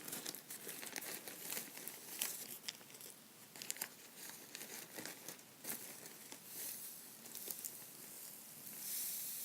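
Still-gluey slime of glue and borax being stirred in a cup: irregular sticky clicks and crackles, with a short burst of hiss near the end.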